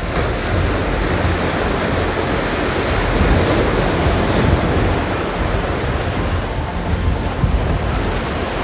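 Sea surf breaking and washing up the shore around rocks, a steady rushing, with wind buffeting the microphone.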